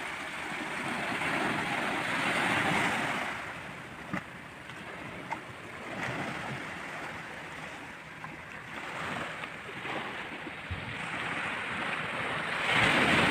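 Small sea waves breaking and washing up over a coral-rubble and sand shore. The surf swells and eases, loudest a couple of seconds in and again near the end.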